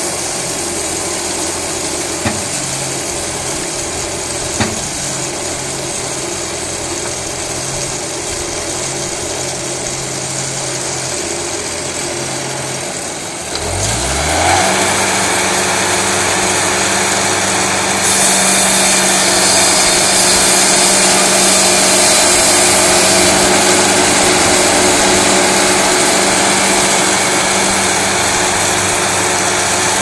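Portable band sawmill's engine running at a steady idle, then revving up about halfway through to a higher steady speed. A few seconds later a steady hiss joins it as the band blade saws through a larch log.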